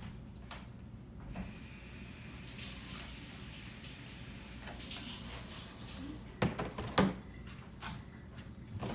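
Handling of a Nerf blaster and its packaging: a few seconds of continuous rustling, then a cluster of sharp plastic knocks and clicks, the loudest about seven seconds in, and one more knock near the end.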